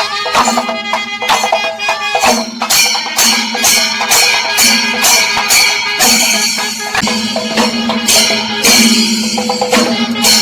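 Kerala temple percussion ensemble (melam) playing: chenda drums beaten in a steady driving rhythm with ilathalam cymbals clashing, and a pitched melody line held over the drumming.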